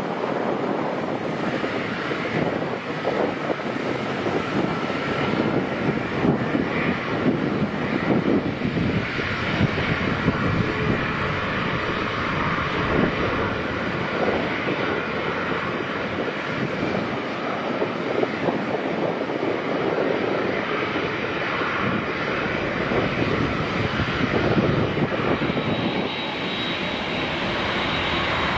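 Airbus A380's four jet engines running steadily as the airliner lines up and rolls for takeoff. About two seconds before the end the sound shifts to a Boeing 747's jet engines, with a thin steady high whine.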